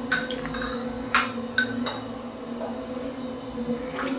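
A serving spoon clinks lightly against a steel cooking pot several times while cooked chicken masala is spooned onto a layer of rice. A steady low hum runs underneath.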